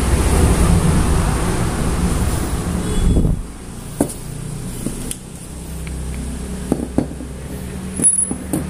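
A steady low rumbling noise that cuts off suddenly about three seconds in, followed by a quieter hum with several short light clicks and knocks of metal parts as a four-stroke motorcycle cylinder head is handled and set down on a tiled floor.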